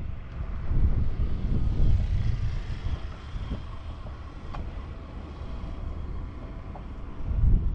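Wind gusting on the microphone, heaviest from about a second in and again near the end, over a faint steady outdoor hum.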